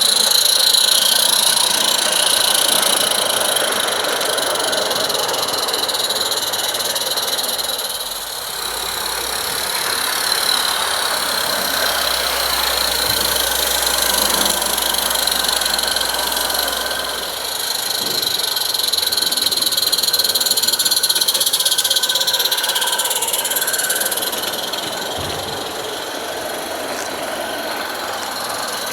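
Small 16mm-scale live steam locomotive running on garden railway track: a steady hissing and mechanical running noise from its steam and running gear.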